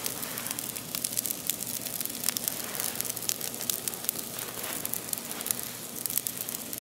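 Campfire of dry sticks stacked in a teepee, burning and crackling with many sharp pops over a steady noisy hiss. It cuts off abruptly near the end.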